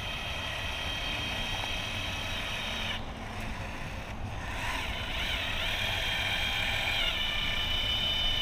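Cordless electric caulking gun running its motor as it pushes a bead of urethane onto the rear window glass, a steady whine. It stops about three seconds in, starts again a second later with a wavering pitch, then runs steady.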